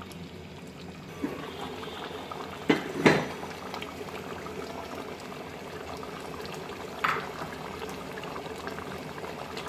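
Beef kosha gravy bubbling at a boil in a steel pot after a cup of water has been added to simmer the meat. A few sharp knocks sound over it: two loud ones close together about three seconds in, and another near seven seconds.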